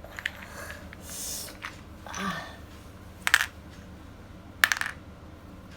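Small plastic toy bricks clicking and clattering against each other: a few sharp clacks, the loudest about three and a half and five seconds in, with softer rustling between.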